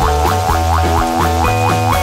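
Upbeat background music: a quick, even run of short notes, each sliding up a little, about four a second, over steady bass notes.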